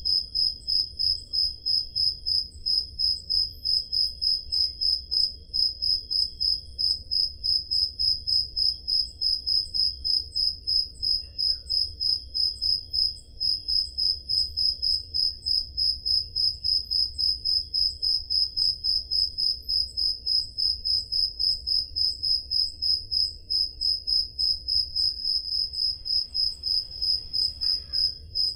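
Crickets chirping: one loud, high-pitched chirp repeats evenly about three times a second, with fainter crickets pulsing behind it and a faint low rumble underneath.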